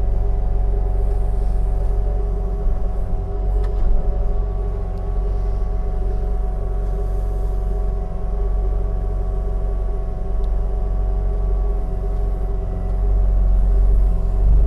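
Skid steer's diesel engine running steadily with a low rumble and a constant hum, growing louder near the end.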